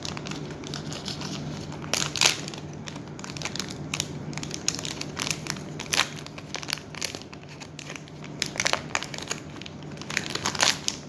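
Plastic film wrapper of an air-freshener pouch being torn open and handled: irregular crinkling and crackling throughout, with louder crackles about two, six and ten and a half seconds in.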